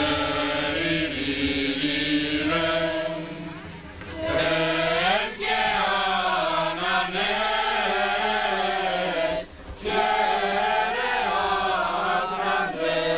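Choir of men and boys singing together in long held notes, with brief breaks between phrases about four and nine and a half seconds in.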